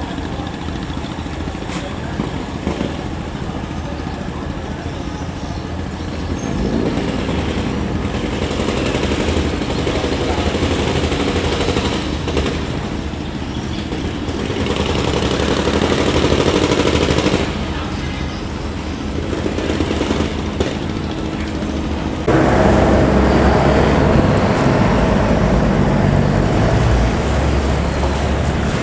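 Boat engines running steadily under a broad rushing noise. The sound swells twice and jumps sharply louder about 22 seconds in.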